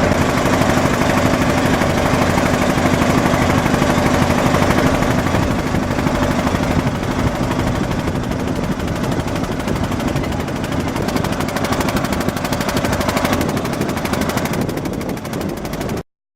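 Boat engine running steadily with a rapid, even chugging, cutting off suddenly near the end.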